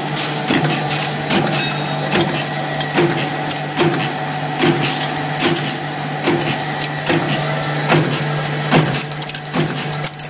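Automotive fastener production machine running with a steady low hum and a regular knock a little more often than once a second, as each stroke forms a part. Small metal parts clatter down the chute into a metal basket between the strokes.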